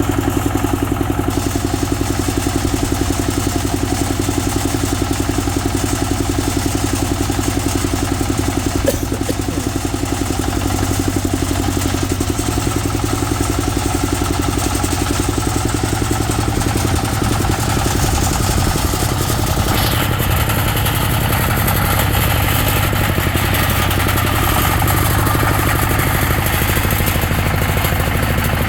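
Small farm tractor's engine running steadily, its pulsing note holding even throughout; about two-thirds of the way through the sound abruptly turns brighter and harsher.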